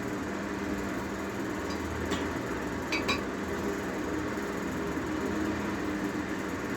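Steady mechanical hum with a low drone, and a few light clicks about two to three seconds in.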